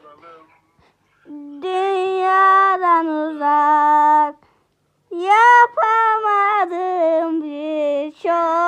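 A high voice singing unaccompanied, in long held notes with a wavering vibrato, in two phrases with a short pause between them.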